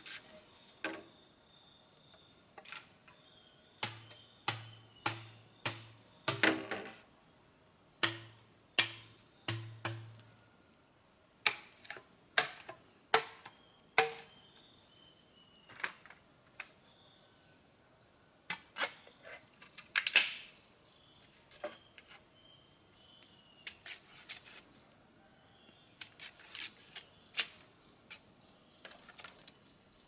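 A small smoking fire on the ground cracking and popping: a long run of sharp, irregular cracks, some in quick clusters and others spaced out, a few very loud.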